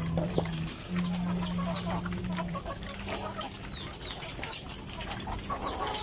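A flock of caged laying hens clucking and calling in short scattered notes, over a steady low hum that fades out about two and a half seconds in, with a few light clicks.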